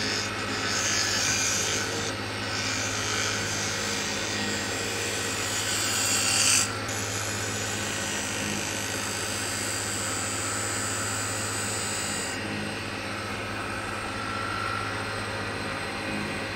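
Wood lathe running with a steady hum while a spindle gouge cuts the spinning magnolia blank, a hissing cut that comes and goes and stops about twelve seconds in, leaving the lathe hum alone.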